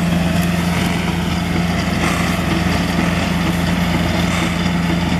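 Heavy diesel engine of a concrete truck running steadily at a constant speed, a low, even drone with a strong steady hum, working the concrete pour for the footers.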